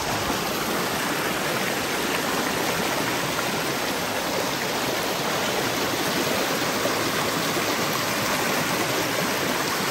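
Stream water rushing steadily, an even, continuous wash of sound.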